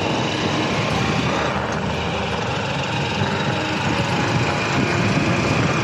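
Motorcycle riding along a road: a steady engine drone with wind and road noise rushing over the microphone.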